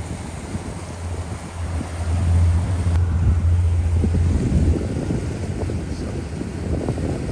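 Motorboat engine running underway, a steady low drone that swells louder for a couple of seconds in the middle, with wind buffeting the microphone.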